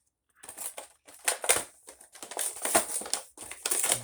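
Plastic action-figure packaging crinkling and rustling in irregular bursts as it is handled and opened. It starts after a brief silence about half a second in.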